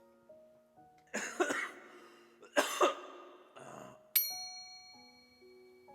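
A person choking and coughing hard, two harsh coughs about a second apart and a weaker one after, over soft keyboard background music. A bright chime rings out about four seconds in and fades slowly.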